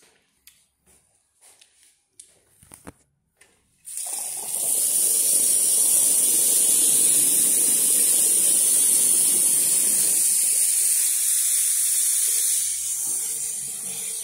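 A few faint rustles and clicks, then a loud, steady rushing hiss that starts abruptly about four seconds in and eases off near the end.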